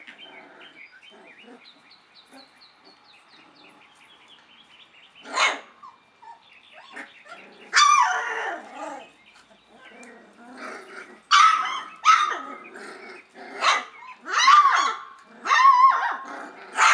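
A litter of young puppies yapping and barking in high-pitched voices as they play-fight. A few faint high squeaks at first, one sharp bark about five seconds in, then from about eight seconds on a quick run of yips and barks.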